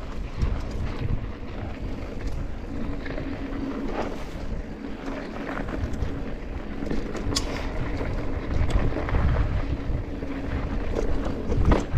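Wind buffeting the microphone of a camera on a mountain bike riding a trail, with scattered clicks and rattles from the bike over the ground.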